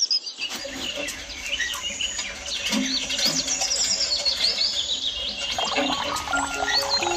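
Small birds chirping and twittering: a dense run of short, quick high calls.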